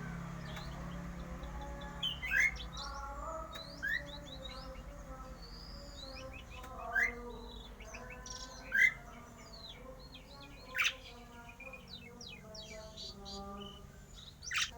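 A jalak uren (Javan pied starling) singing a varied song of whistles, chirps and sharp rising notes, with a louder, piercing note every two seconds or so.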